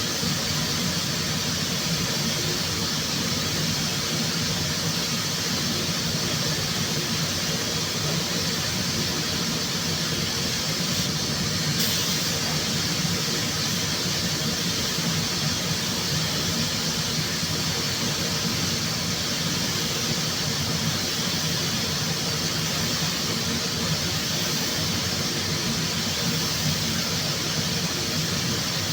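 Steady, continuous hiss over a low machine hum, with a slight change in the hiss about twelve seconds in.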